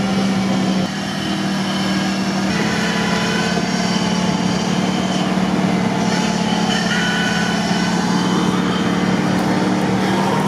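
Off-road 4x4's engine running at a steady pitch as it crawls slowly through swamp reeds.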